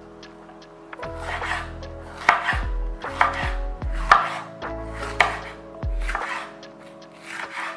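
Chef's knife chopping a bell pepper into strips on a wooden cutting board: a series of sharp knocks, roughly one a second, starting about a second in.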